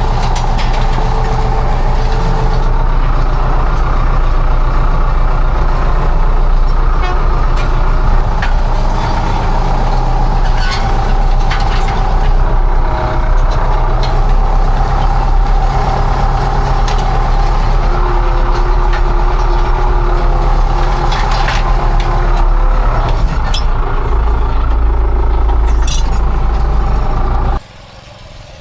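Farm tractor engine running steadily under load, with scattered sharp clicks and knocks over it; it cuts off suddenly near the end.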